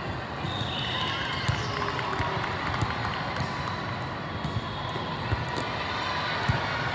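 Din of a large, echoing hall full of volleyball courts: a murmur of many voices with scattered thuds of volleyballs being hit and bounced on the hard floor.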